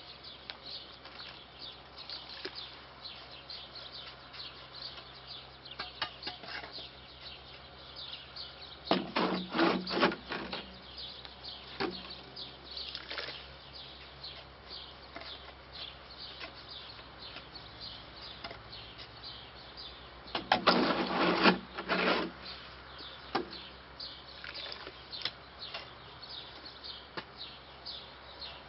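Shovel scraping and scooping concrete in a wheelbarrow, in two loud bouts about nine and twenty seconds in, with a few lighter knocks between. Small birds chirp faintly throughout.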